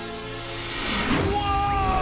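Action-score background music from the cartoon soundtrack, with a heavy low boom about a second in, followed by two high tones gliding slowly down.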